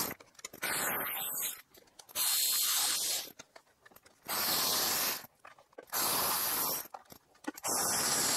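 Five separate bursts of hissing, each about a second long, with short quiet gaps between them.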